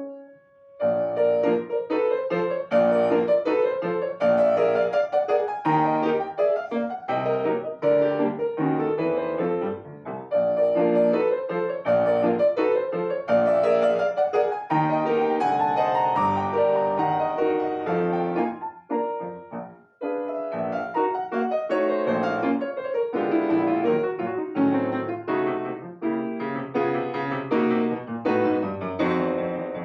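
Solo piano playing a classical piece. The playing starts about a second in, and there is a brief pause near two-thirds of the way through before it resumes.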